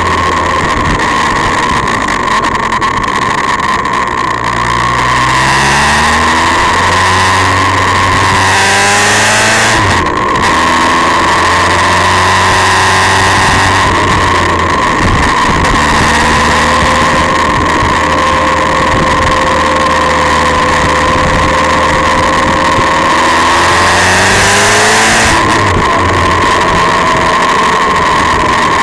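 Vehicle engine heard from on board, pulling up in pitch twice, each time dropping suddenly as it shifts up a gear (about ten seconds in and again near 25 seconds), and holding a steady cruise in between, over a constant rush of wind and road noise.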